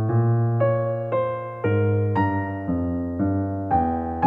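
Soft piano background music, with a new note or chord struck about twice a second and fading between strikes.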